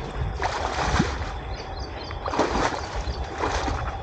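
Water splashing and sloshing in irregular swishes, with wind rumbling on the microphone.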